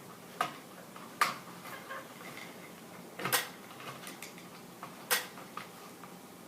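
Light clicks and clinks of wiring being tucked up into a ceiling fan's electrical box, with four sharper clicks at irregular intervals and fainter ticks between.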